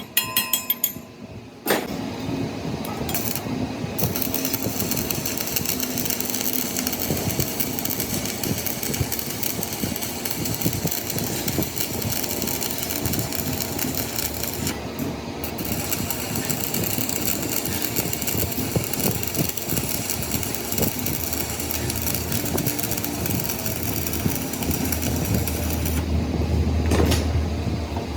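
A few sharp metal knocks, then a power tool running continuously with a dense, rapid rattle, a low hum joining in near the end.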